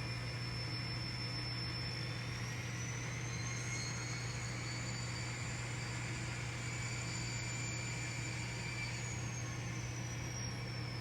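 N scale model diesel locomotive running under power, a steady low hum with a high whine that rises in pitch about a third of the way in and falls again near the end as the speed changes.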